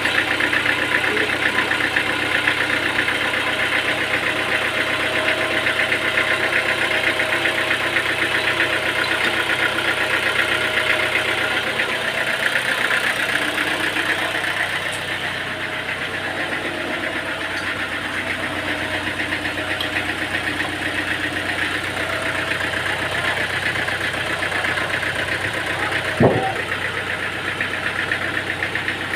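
An engine running steadily with a fast, even rhythm. A single sharp knock sounds a few seconds before the end.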